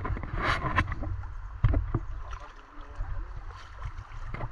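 Low rumble with a few sharp knocks and rustles: handling noise from a camera being moved close through riverside grass.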